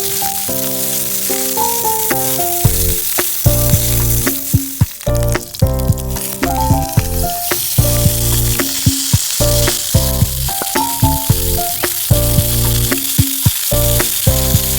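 Background music with a stepping melody, a bass line and a steady beat, over the continuous sizzle of food frying in a pan.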